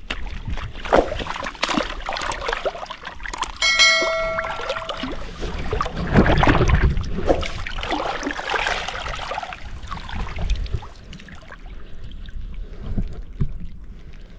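Shallow water splashing and sloshing as a hand works in the water to pull a mud crab out of its hole. About four seconds in, a single ringing metallic ding sounds for about a second.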